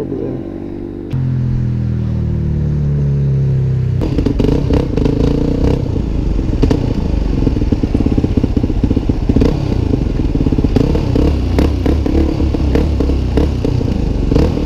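Yamaha supermoto engine revving up, then running under way from about four seconds in, with wind buffeting a helmet-mounted microphone.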